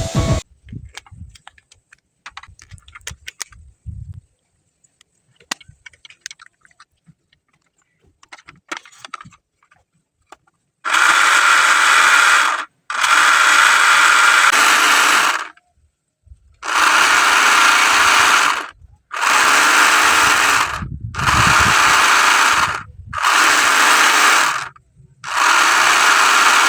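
Faint clicks and handling noises, then a small electric motor whirring in seven bursts of about two seconds each, switched on and off with short silences between.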